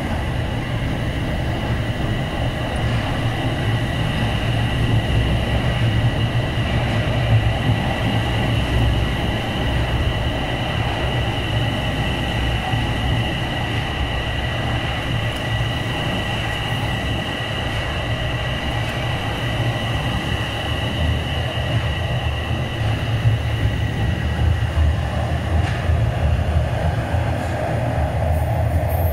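Toronto Rocket subway train running along the platform: a steady low rumble with a steady high whine above it, the whine fading out near the end.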